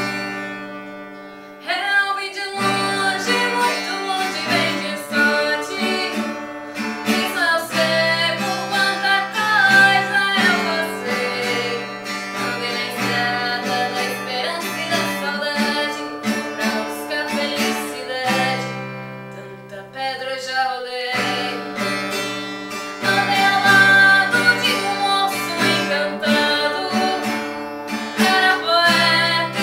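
A woman singing a song while accompanying herself on an acoustic guitar, a guitar chord opening and the voice coming in about two seconds later.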